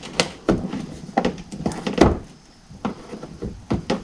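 Irregular sharp clicks and knocks of hands and tools working loose car trim and fasteners, the loudest about two seconds in.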